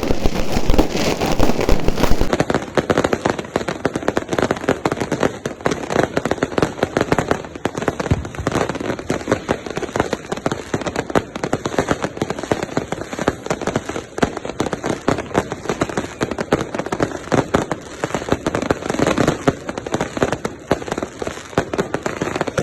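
Fireworks and firecrackers going off in a dense, continuous crackle of rapid pops, loudest in the first two seconds.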